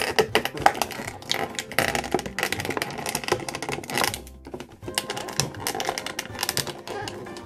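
Dense, rapid, irregular clicking and crackling of plastic being handled, much like typing.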